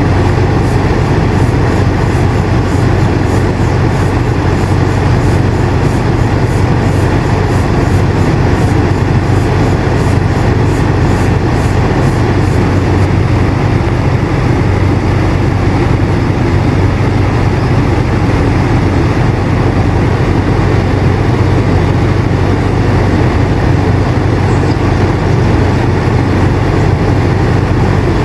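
Air conditioner running steadily: an even rushing of air over a low motor hum. A faint high ticking, about two a second, sits under it and stops about halfway through.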